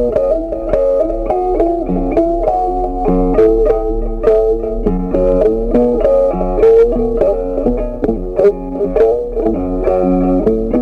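Background music: a plucked guitar melody over a bass line, with notes changing quickly and evenly.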